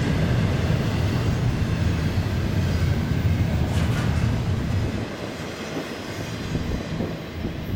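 Double-stack intermodal well cars of a freight train rolling past, their wheels on the rails making a steady low rumble. The rumble drops off about five seconds in as the last car goes by and the train moves away.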